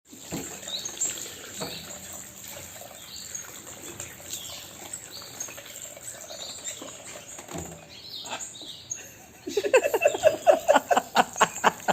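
A parrot chirping and tweeting softly. With a couple of seconds left it breaks into a loud, fast run of short repeated calls, several a second.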